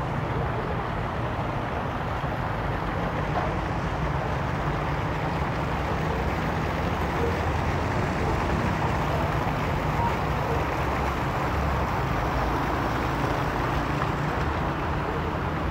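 Ornamental fountain jets splashing steadily into a pool, with a low rumble underneath.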